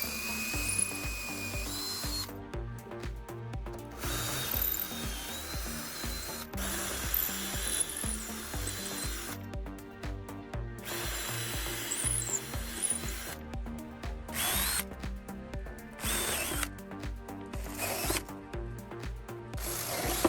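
A power tool running in several bursts of a few seconds each, its pitch rising and falling, over background music with a steady beat.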